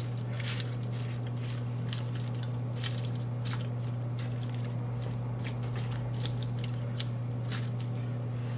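Pan of chicken stock and wine boiling, with scattered small pops and drips, over a steady low hum.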